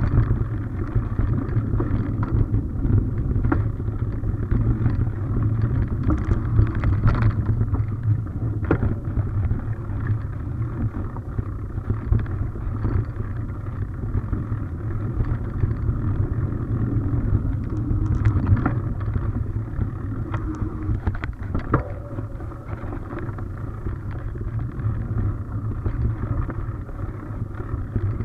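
Mountain bike ridden over a dirt forest trail: a steady low rumble of tyres and riding, with scattered sharp knocks and rattles from the bike over bumps.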